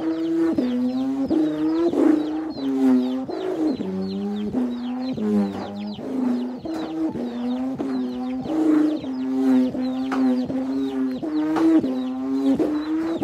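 A Cambodian ek, the bamboo humming bow of a khleng ek kite, whirled on a cord so the wind makes its string sing: a buzzy, wavering drone whose pitch swings up and down with each turn, pulsing a bit more than once a second.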